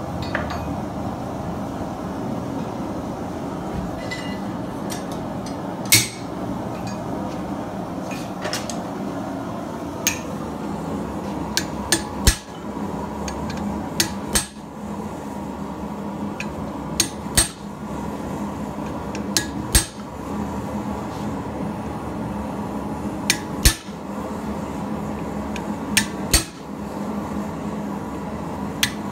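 Hammer blows on a hand-held square-end punch driven into red-hot steel on an anvil, punching in the ears of a forged dog head: sharp metallic strikes every second or few seconds, often two in quick succession, over a steady background rush.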